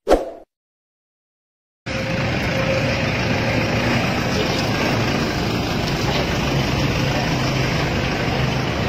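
A brief sound effect right at the start, then silence, then from about two seconds in a steady rumble and hiss of outdoor background noise.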